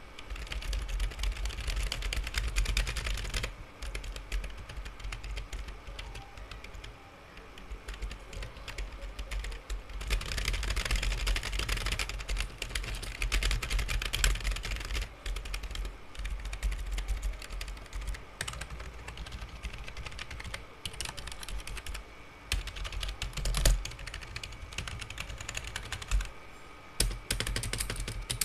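Fast typing on a computer keyboard: a dense clatter of keystrokes in runs, with brief lulls. The keys have a soft, membrane-like ('membrany') sound.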